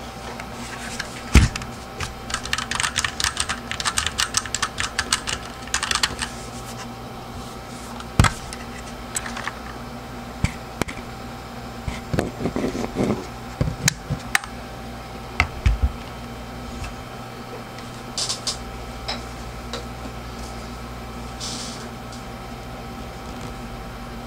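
Typing on a Monstargear MK16BT mechanical keyboard with Cherry MX switches: a quick, dense run of key clicks for several seconds, then scattered single keystrokes. Past the middle come low knocks and clunks as the keyboard is handled and turned over.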